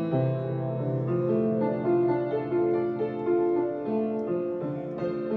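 Background instrumental music: a melody of held notes, changing every half second or so.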